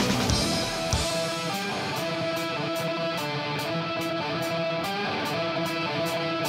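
Electric guitar strumming chords in a steady rhythm, about three strokes a second. It is left on its own after the drums and bass drop out about a second in.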